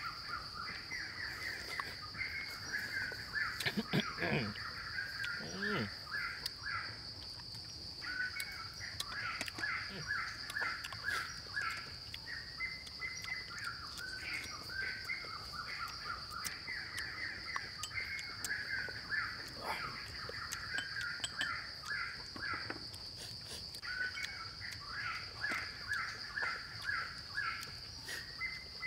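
Forest ambience: a steady high insect drone with repeated phrases of rapid bird chirps every few seconds. A short low voice-like hum about four seconds in.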